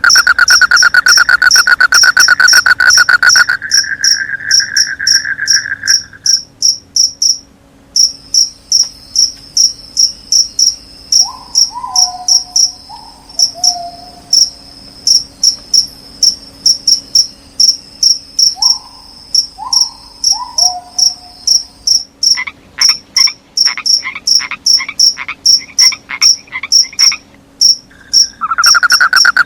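Crickets chirping in a fast, even rhythm throughout, with frogs calling over them: a steady trill for the first few seconds and again near the end, a few short falling croaks around the middle, and a rapid run of calls about two-thirds of the way through.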